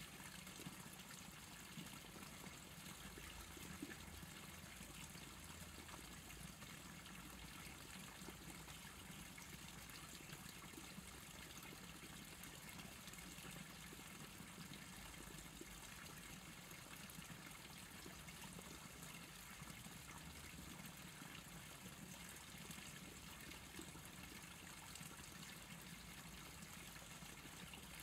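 Faint, steady trickle of stream water, with a steady low hum underneath.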